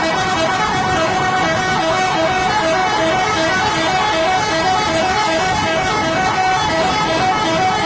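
Bus 'telolet' musical air horn sounding a long run of short, evenly repeated notes at a few fixed pitches.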